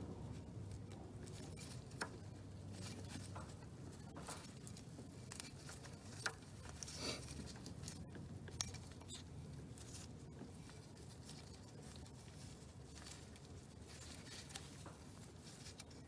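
Faint scattered clicks, scrapes and rustles of hands and a small metal hose clamp being worked onto a power steering hose in a cramped engine bay, with a few sharper clicks now and then over a low steady hum.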